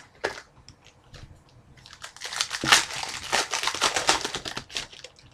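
Plastic wrapper of a hockey card pack being crinkled and torn open, a dense crackling for about three seconds in the second half.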